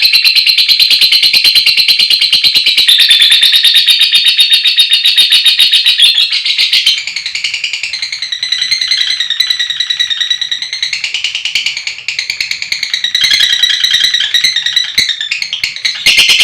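Lovebirds giving a fast, continuous, high-pitched chattering trill, the long 'ngekek' chatter that bird keepers use to provoke other lovebirds into calling. It drops in level about seven seconds in and comes back loud near the end.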